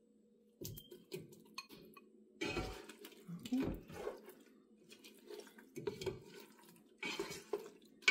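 Pieces of fish dropped into a pot of thick pepper-and-palm-oil base, then a plastic spatula stirring and scraping through the mixture, with irregular knocks against the pot, the loudest about two and a half seconds in.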